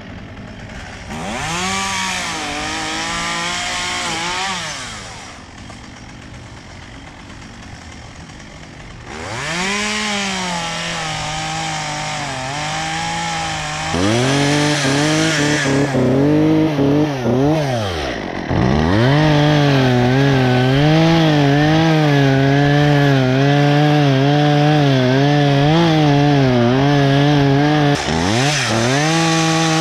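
Chainsaw revving up from idle to full speed several times, its pitch wavering while held high, and dropping back between runs about 5, 14, 18 and 28 seconds in.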